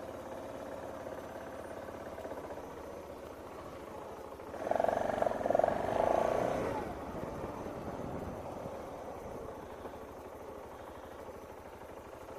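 Steady outdoor background noise, like distant traffic, with a louder passing vehicle-like sound carrying a short tonal whine from about five to seven seconds in.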